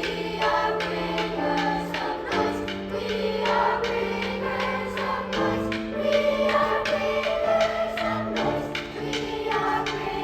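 Youth choir singing in parts over low sustained accompanying notes, with a steady beat of sharp percussive hits throughout.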